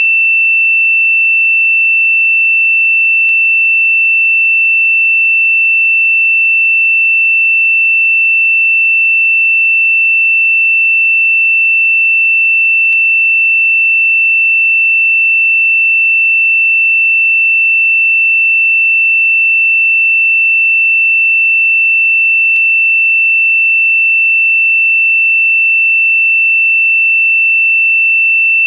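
A single high-pitched electronic pure tone, near 2.7 kHz, held perfectly steady without pulsing, as played for a meditation frequency track. Three very faint clicks come at roughly ten-second intervals.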